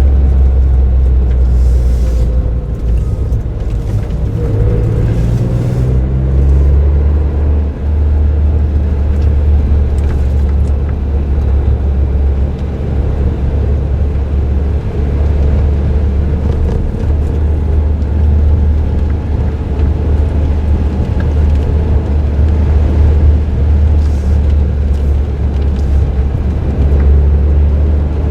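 Suzuki Jimny JB23W's 660 cc turbocharged three-cylinder engine, fitted with an aftermarket muffler, running under way as a steady low drone with tyre and road noise. The engine pitch rises about four to six seconds in.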